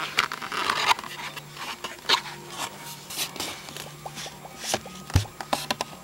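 An Apple Wireless Keyboard's cardboard box being opened by hand: cardboard sliding and rubbing, with scattered small clicks and taps, and one dull thump about five seconds in.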